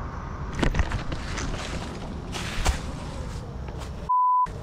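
Footsteps and rustling of someone walking up a rough path, with a couple of louder crunching steps. Near the end a short, steady, high-pitched censor bleep replaces all other sound for about a third of a second.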